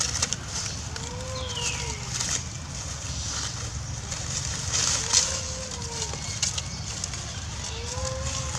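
An animal call, clear and arched (rising then falling), about a second long, repeated three times about three seconds apart, over a steady low rumble.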